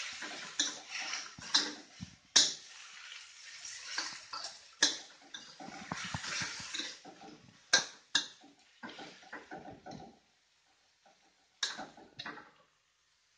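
Metal spatula stirring and scraping bamboo shoots in a stainless steel wok over sizzling frying, with several sharp clanks of the spatula against the pan. The stirring pauses briefly near the end before two more clanks.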